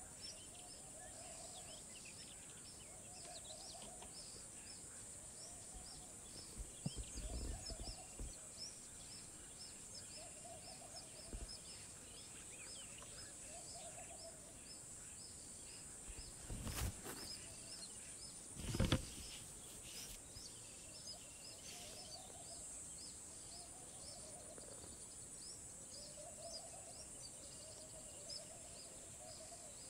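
Faint outdoor ambience: a steady high-pitched hiss with many small bird chirps and a softer call repeating every second or two. A few low thumps come near a quarter of the way in and twice a little past the middle.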